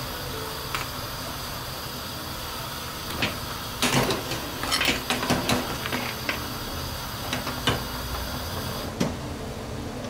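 Handling noises: a run of short clicks, taps and rustles over a steady low hiss, busiest around four to five seconds in.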